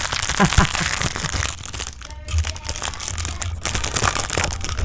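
Crinkling and crackling handling noise from the plastic of a wind-up toy chicken and its bubblegum eggs being fiddled with right by the microphone.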